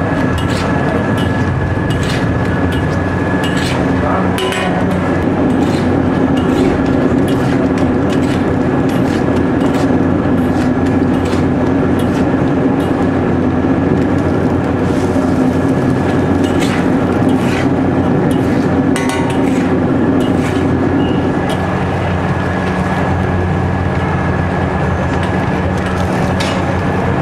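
Steady, loud mechanical rumble with a thin high whine held throughout, broken by scattered sharp clicks and taps, several in quick succession at times.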